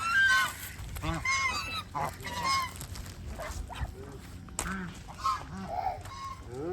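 Farmyard waterfowl calling: a run of loud calls in the first three seconds, then softer, lower calls.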